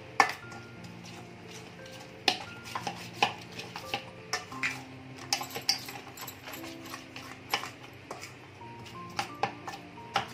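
Metal spoon stirring and scraping a thick yogurt-and-spice marinade in a stainless steel bowl, with irregular clinks of spoon on steel; soft background music plays underneath.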